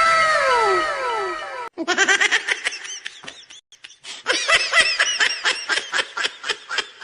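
Editing sound effects played one after another: a short effect of several overlapping tones sliding down in pitch, then a laughing sound effect of quick repeated laughs, with a dip about three seconds in.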